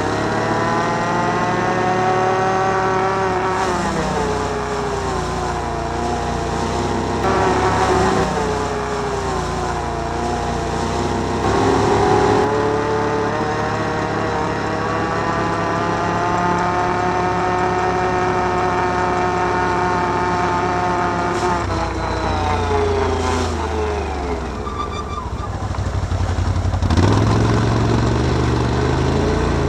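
Can-Am Outlander 1000 ATV's V-twin engine running on the move, its pitch rising and falling as the throttle is opened and eased. About three-quarters of the way through it drops away, then revs up again near the end.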